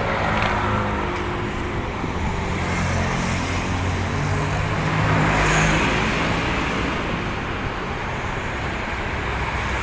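Road traffic: a motor vehicle's engine hum over steady road noise, swelling to its loudest about halfway through as a vehicle passes close by.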